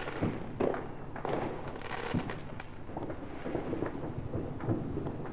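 Fireworks going off: a run of irregular pops and crackles.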